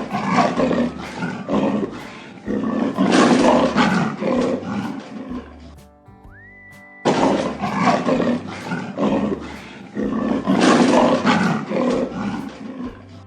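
Lion roaring: a bout of loud roars trailing off into shorter grunts, heard twice in a row, with a short gap between the two bouts.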